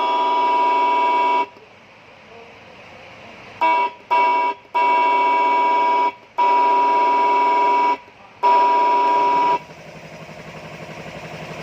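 Electronic siren module sounding a steady horn tone through a loudspeaker. The tone cuts off about a second and a half in, then comes back in five presses: two short blips, then three of a second or more each. Near the end a lower pulsing buzz starts. The tone rasps instead of sounding clean, the module's fault, which the owner traces to its amplifier IC (a TDA2005).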